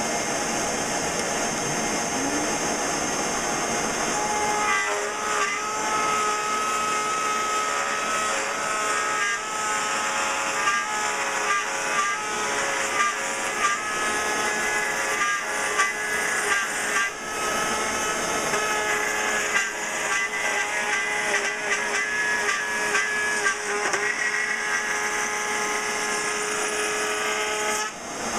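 Porter-Cable router spinning in a router table, with a shop vacuum drawing dust from it. From about five seconds in, the bit cuts a profile along a wooden board fed past it, and the sound turns into a loud, shifting whine with rapid irregular ticks, dipping briefly near the end.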